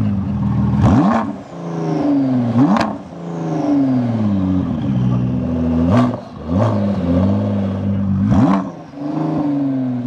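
Car engine being revved in quick blips, five in all. Each one rises sharply in pitch and then dies away more slowly.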